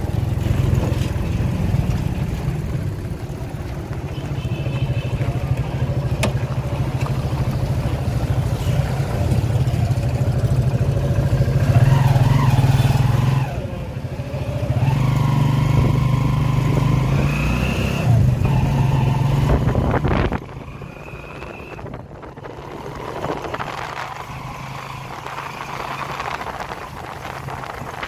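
Motorcycle engine of a tricycle running steadily while riding, heard from the sidecar, with the engine pitch rising and falling now and then. About 20 seconds in, the engine sound drops away sharply and a quieter background remains.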